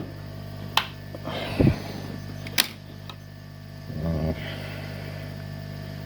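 A few sharp clicks and a dull knock from handling small objects, over a steady electrical hum.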